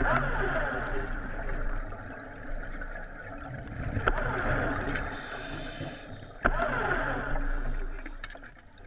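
Underwater recording of a diver propulsion vehicle's electric motor and propeller running steadily, with sweeping whines, along with scuba regulator breathing: a hiss of inhalation about five seconds in, then bubbling. The sound fades near the end.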